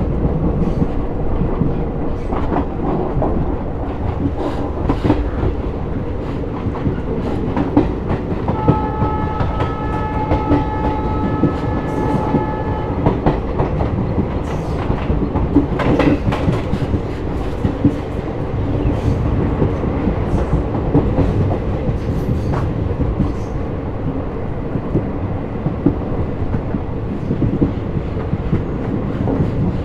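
Passenger train running at speed: a steady rumble of wheels on rail with irregular clickety-clack over the rail joints. The locomotive's horn sounds once for about four seconds near the middle.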